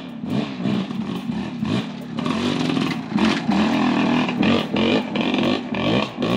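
Off-road vehicle engine running nearby, its pitch rising and falling as it is revved.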